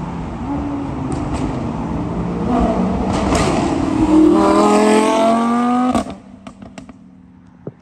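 Supercharged Lamborghini Huracán's 5.2-litre V10 accelerating hard past. Its note climbs steadily in pitch as it revs and is loudest as it goes by. The sound drops off abruptly about six seconds in, leaving a few faint sharp clicks.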